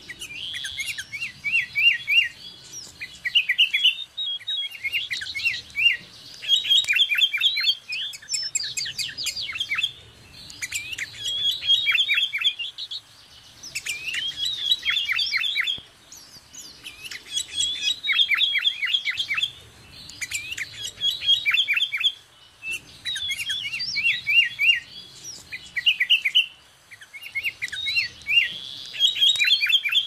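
Sooty-headed bulbul singing: short phrases of quick, high whistled notes, repeated over and over with brief pauses between them.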